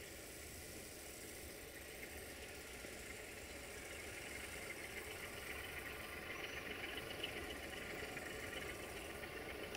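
Diesel engine of a CFR 060-DA (LDE2100) diesel-electric locomotive running, a Sulzer 12-cylinder, growing gradually louder as the locomotive approaches.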